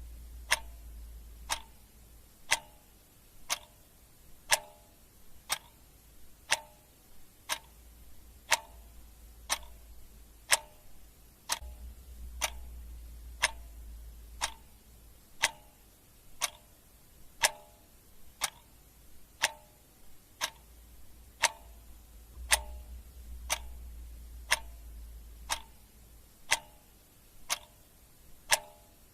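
Clock ticking sound effect, a sharp tick about once a second, steady and even. A faint low hum fades in and out underneath.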